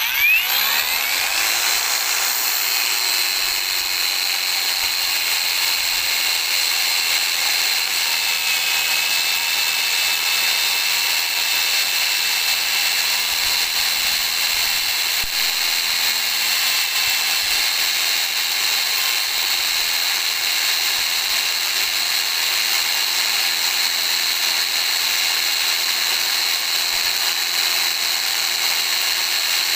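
Angle grinder spinning up over the first couple of seconds, then running steadily with a high whine as its CD disc grinds against a thin wooden rod. The plastic CD does not cut the wood cleanly: it wears away and melts into strands.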